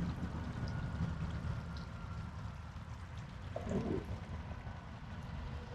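Steady outdoor background of low rumble with water trickling, typical of a garden pond's running water, and a brief faint sound a little past halfway.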